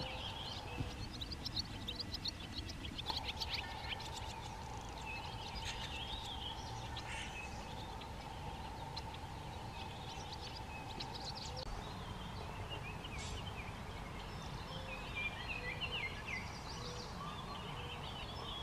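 Several wild birds chirping and calling on and off over a low rumbling background. A steady hum comes in about three seconds in and fades out after roughly nine seconds.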